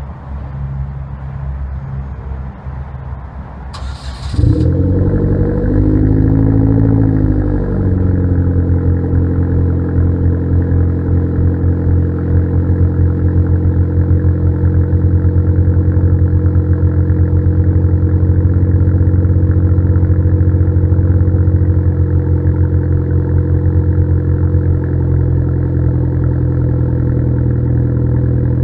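Straight-piped exhaust of a 2012 Hyundai Genesis Coupe's 2.0-litre turbocharged four-cylinder engine: the engine starts about four seconds in, its revs flare up and drop back, and it then settles into a steady, loud idle.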